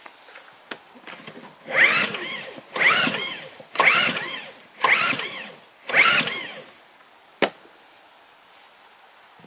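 Champion 2000W inverter generator (73536i) being pull-started by its recoil cord: five pulls about a second apart, each a whirr rising and falling in pitch as the engine cranks, without catching, because the fuel shut-off on top is still closed. A single sharp click follows near the end.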